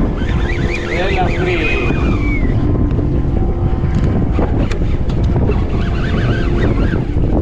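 Strong wind buffeting the microphone on a small boat in rough sea, with a steady hum underneath and a few brief high calls about a second in and again near the end.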